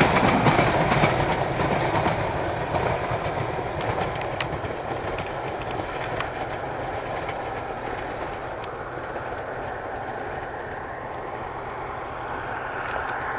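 Narrow-gauge train behind Durango & Silverton steam locomotive #493 rolling away, its wheels rumbling with scattered clicks over the rail joints. It fades steadily as the train recedes.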